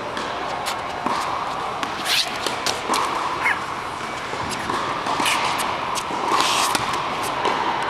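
Tennis rally on an indoor court: a string of sharp pops from racquets striking the ball and the ball bouncing, every second or so. The pops echo in a large hall.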